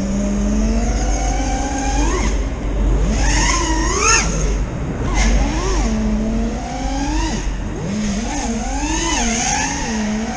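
FPV freestyle quadcopter's T-Motor Velox 2207 1950kv brushless motors whining, the pitch climbing and dropping over and over with the throttle, over a hiss of rushing air.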